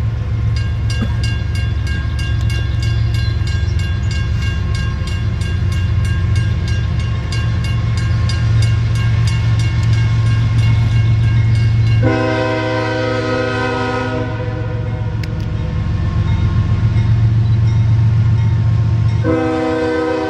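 Approaching CSX freight locomotive sounding its air horn: a fainter held blast through the first half, then a louder blast of about two seconds just past the middle and another starting near the end. A steady low rumble runs underneath, and a rapid regular ticking is heard in the first several seconds.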